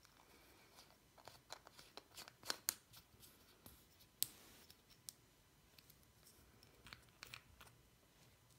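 Faint plastic clicks and rubbing from a Hosch superglue bottle and its cap being handled and fitted together. There is a cluster of sharp clicks a couple of seconds in, a single loud click about four seconds in, and a few more near the end.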